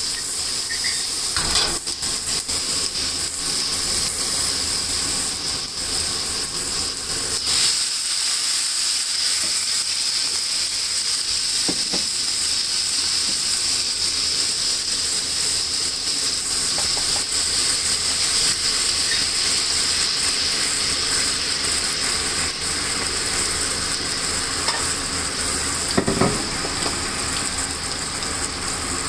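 Sliced onions sizzling in hot oil in a stainless steel skillet, a steady frying hiss. A few short knocks come through it, the loudest near the end.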